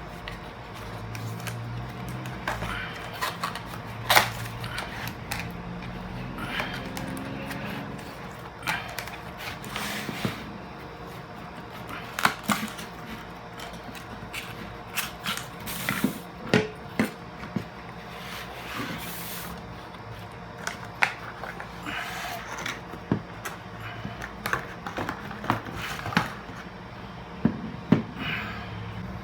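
Irregular clicks, knocks and scrapes of objects being handled, over a low steady hum.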